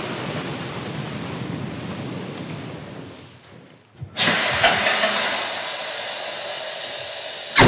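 Coal pouring out of the opened side flaps of self-unloading hopper wagons into the bunker below, a steady rushing hiss. It dies away over the first few seconds, then starts again much louder and brighter about four seconds in, with a knock or two.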